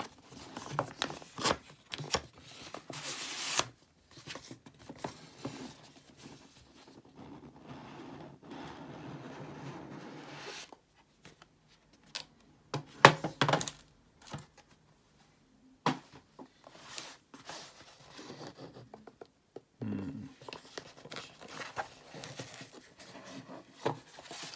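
Cardboard tool-kit packaging being handled: rustling and clicks as the printed sleeve is worked off the box, a long steady scrape as the box slides out, and a sharp knock about halfway through, the loudest sound. Softer rustling and bumps follow as the lid comes off and the fabric tool pouch is lifted out.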